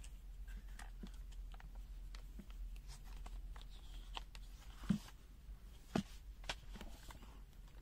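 Faint handling sounds of a plastic-cased multimeter being turned over in the hands and set down on a rubber bench mat: scattered small clicks and rubs, with two louder knocks about five and six seconds in, over a low steady hum.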